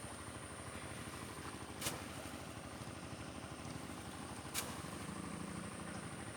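A small engine running steadily with a fast, even pulse, and two sharp clicks about three seconds apart.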